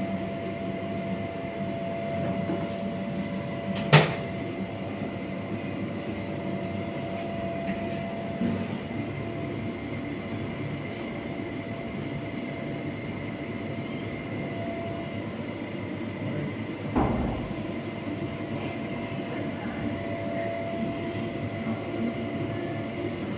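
Steady machinery hum with a faint, even whine, broken by two sharp knocks: a bright one about four seconds in and a duller, heavier one about seventeen seconds in.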